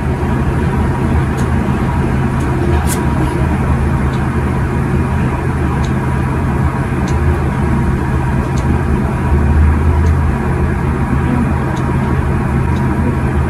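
Steady mechanical droning hum with a hiss over it, unchanging throughout, with a few faint light ticks now and then.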